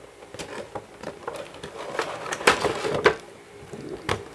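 Action-figure packaging being opened by hand: the cardboard box and its clear plastic blister tray crinkle, scrape and crackle in a string of short bursts, the two loudest a little past halfway.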